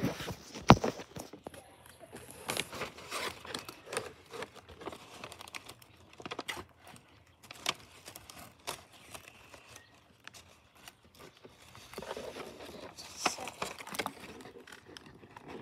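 Handling noise: scattered clicks, taps and rustling at an uneven pace, with one sharp click about a second in.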